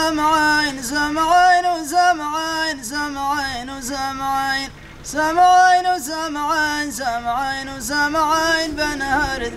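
A man singing a Modern South Arabian poem about a tribal conflict, unaccompanied, in long held notes that slide and waver between syllables, with a short break for breath about halfway through.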